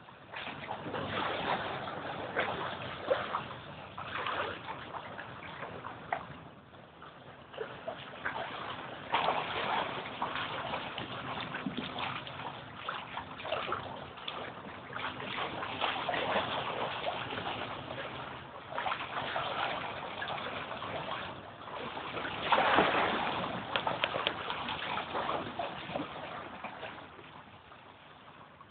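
Bay water surging and sloshing through the San Francisco Wave Organ's pipes: an irregular gurgling wash that swells and falls every few seconds. A faint low steady tone sounds through the middle part, and the loudest surge comes near the end.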